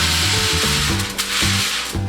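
Background music with a steady beat over tap water running in a steady hiss, which dips briefly about a second in.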